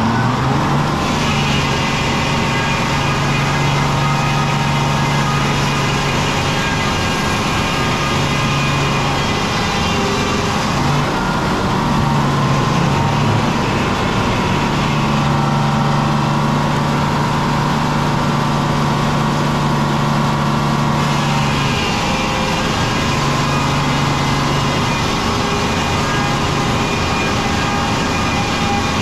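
Sawmill running while it saws a pine log: a steady engine drone under the sawing, the tone shifting every few seconds as cuts start and stop.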